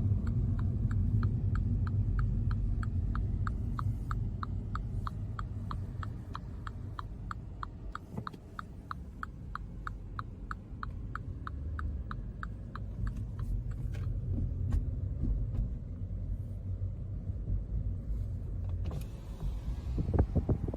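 Construction vehicle's reversing alarm beeping fast and evenly, about two and a half beeps a second, over a low engine rumble. The beeping stops about two-thirds of the way through, and the noise grows louder near the end.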